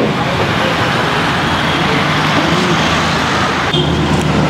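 Busy street traffic noise, steady and fairly loud, changing abruptly to a different background near the end.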